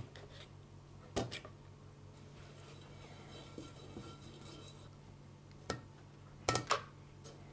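A handful of short, sharp taps and clinks of a hand tool and screws against the metal housing of a Volvo Penta saildrive while holes are punched through gasket paper and screws set in, two of them close together near the end. A low steady hum runs underneath.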